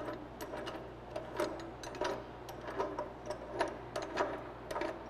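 Screw vise on a metal chop saw's base being cranked tight by hand against a metal workpiece: irregular metallic clicks and knocks, about two a second.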